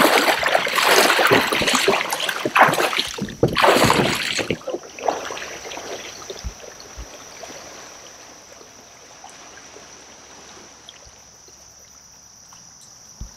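Water splashing loudly around a man's legs as he wades through shallow creek water beside a kayak, for about the first four and a half seconds. After that, fainter water sounds under a steady high insect drone.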